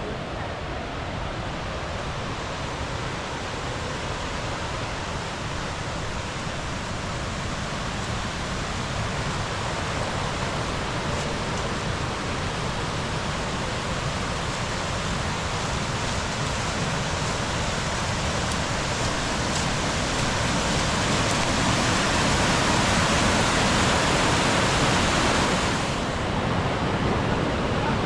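Rushing water of a mountain stream or waterfall, a steady roar that slowly grows louder and then drops off suddenly near the end.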